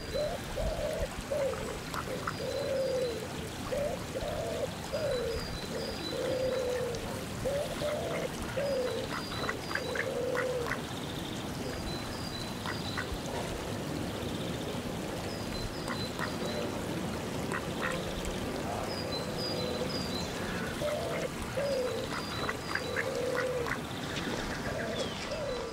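Ducks quacking in runs of calls, falling quiet for several seconds around the middle, while a small bird repeats a short, high three-note chirp in the background. Underneath is a steady wash of lapping water.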